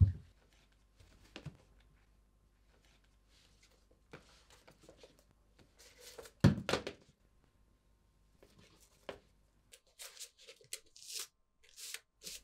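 Hardback books handled and shifted on a wooden stack: a few light knocks, a heavier thud about six and a half seconds in, and paper rustling near the end as a ribbon-tied book with a paper note is handled.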